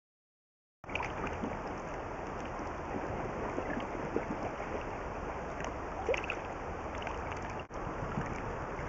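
Steady rush of river water with wind noise on a small camera's microphone, starting about a second in, with a few faint splashes and knocks.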